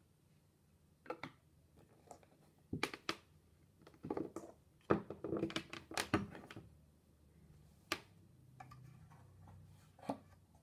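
Scattered light knocks and clicks of shoji lamp parts (wooden frame, lattice panels and a bulb holder) being handled and set down, busiest through the middle with a quick cluster of taps.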